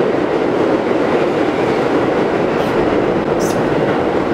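New York City subway car running along the track: a loud, steady rumble and rattle of wheels on rail. Two brief faint high hisses come in the second half.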